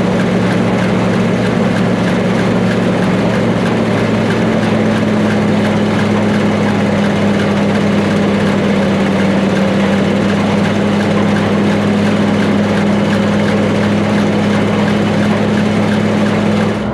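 Gleaner A2 combine running steadily under harvest, its engine and threshing machinery making a loud, even drone; the engine pitch rises slightly about four seconds in.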